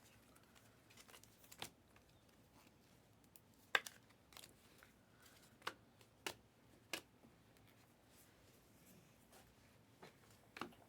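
Faint, scattered clicks and light rustles of trading cards and foil card packs being handled and flipped through, a few sharp snaps spaced irregularly.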